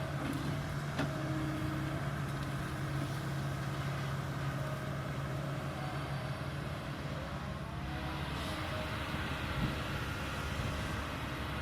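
Kobelco excavator's diesel engine running steadily at work, with a faint rising whine about eight seconds in.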